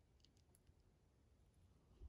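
Near silence, with a few faint, thin clicks in the first half-second of a small handleless lockpick working the pins of a padlock.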